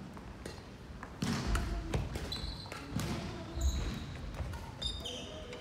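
Badminton rally: sharp racket-on-shuttlecock hits and thuds of footwork, with several short high squeaks of shoes on the court floor.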